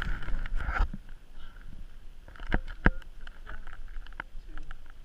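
Rustling and handling noise with a low wind rumble, two sharp knocks a little after two and a half seconds in and again just under three seconds in, then a few lighter clicks, while a lake trout is being measured with a tape measure on the ice.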